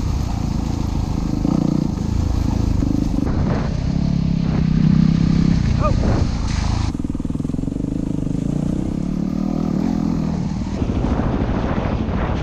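Dual-sport motorcycle engine running under way, its note shifting up and down with the throttle.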